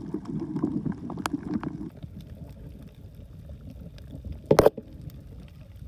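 Muffled underwater sound picked up by an action camera: low rumbling water noise with scattered small clicks, heavier in the first two seconds, and one short loud burst of noise about four and a half seconds in.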